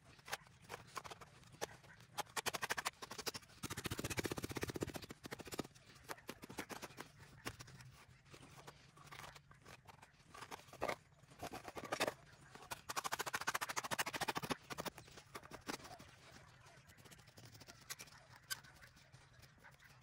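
Hands and a flat metal scoop scraping and scooping loose soil out of a small hole in the ground: uneven scratching and crunching, denser and louder from about three to five seconds in and again around thirteen to fourteen seconds.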